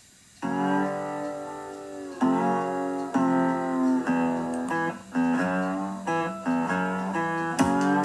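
Guitar music: plucked chords starting about half a second in and re-struck roughly every second.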